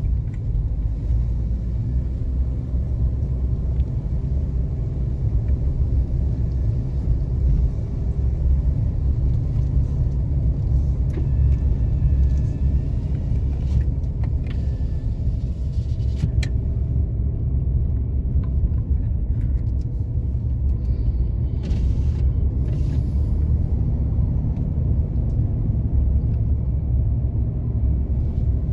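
Car driving slowly along a paved residential road: a steady low rumble of engine and tyre noise.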